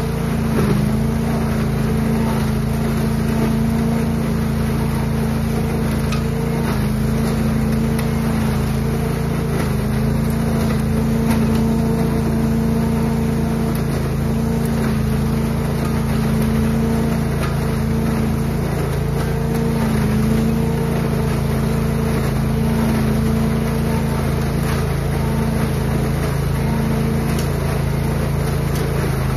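Trailer-mounted Billy Goat leaf vacuum running at a steady speed, its engine and fan humming evenly with a rush of air as leaves are sucked up through the wide intake hose.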